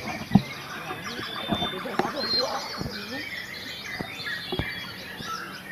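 Many caged white-rumped shamas (murai batu) singing at once, a dense tangle of overlapping whistles, trills and chirps. A few low thumps cut through, the loudest a sharp knock about half a second in.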